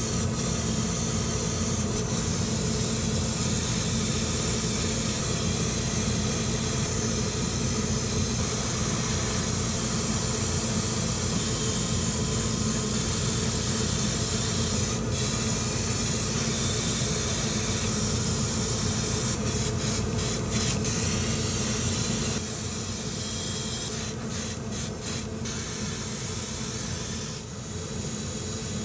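Gravity-feed airbrush spraying lacquer surfacer onto small model-kit parts: a steady hiss of air and paint, over a steady low motor hum. The hiss breaks off briefly several times in the second half as the trigger is let go, and it gets quieter a little past the middle.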